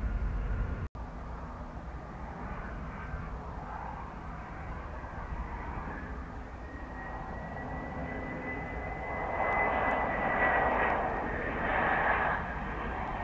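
Jet airliner's engines running, a rushing noise with a thin high whine that climbs slightly and then eases, growing louder in the second half with two swells.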